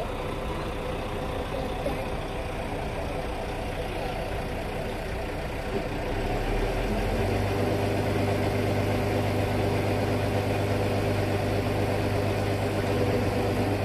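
Diesel engine of a crane lorry idling. About six seconds in it picks up to a higher, steady speed and gets louder, holding there.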